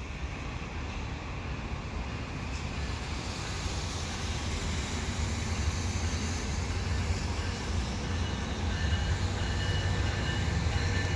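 Bombardier ALP45DP dual-mode locomotive running on diesel as it approaches, a steady low rumble that grows gradually louder. A faint high whine joins in the last few seconds.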